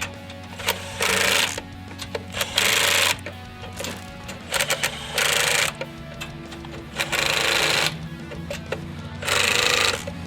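Milwaukee M12 Fuel 3/8" stubby cordless impact wrench running lug nuts down on its lowest setting, in about six short bursts of rapid hammering, each under a second long. Background music plays underneath.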